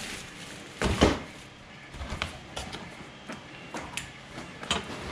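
Packing being handled while a 3D printer's frame parts are lifted from the box: foam inserts and cardboard scraping and rubbing, with one louder scrape about a second in, then a run of light clicks and knocks, the sharpest near the end.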